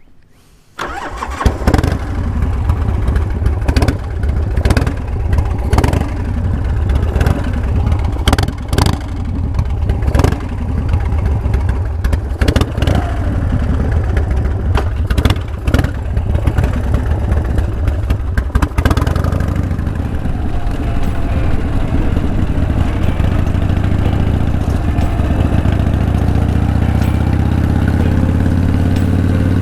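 Harley-Davidson Softail Custom's Evolution V-twin engine starting about a second in. It runs choppy and uneven, with many short sharp spikes, then settles into a steadier run from about two-thirds of the way through.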